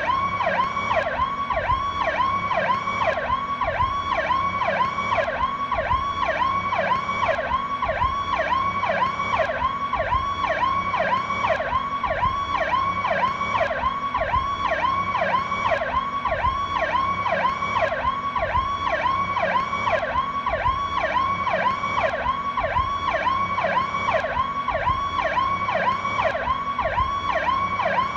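Police car electronic siren sounding its Powercall tone: a fast, even warble that rises and falls about three times a second, running steadily without a break.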